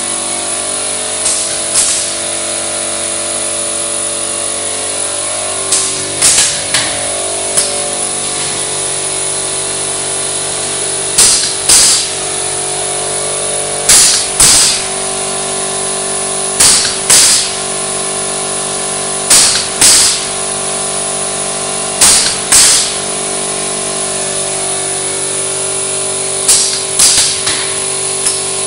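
Metal-profile roll-forming line running with a steady hum, broken every few seconds by pairs of short, sharp bursts that fit the flying-cut guillotine cutting the profile to length. Music plays along with it.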